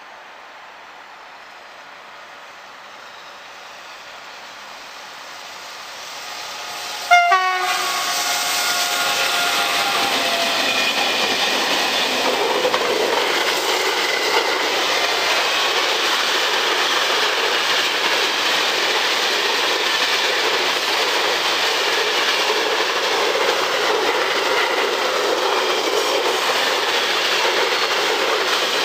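A train approaches and sounds a short, loud horn blast about seven seconds in, then passes close by at speed, its wheels running on the rails in a steady loud rush.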